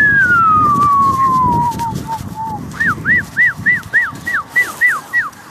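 Emergency vehicle siren: one long falling wail, then a run of quick, evenly spaced rise-and-fall whoops, about four a second.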